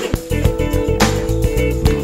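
Background music led by guitar, with bass notes and a steady beat.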